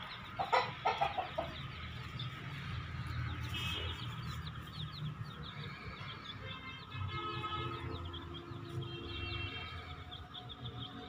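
Aseel chickens clucking and calling, with a quick run of loud short calls about half a second in, followed by longer drawn-out calls and many short high chirps.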